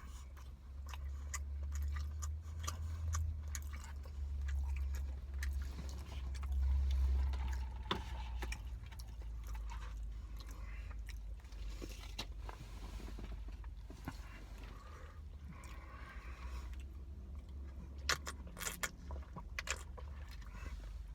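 Eating sounds from a meal of chicken biryani: chewing, with many scattered light clicks and scrapes of utensils, over a low steady rumble.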